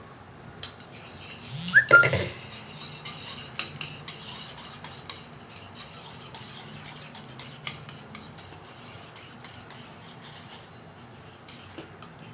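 Wire whisk stirring quickly in a pan, giving a steady scratchy scraping with small rapid ticks against the metal, after a knock about two seconds in.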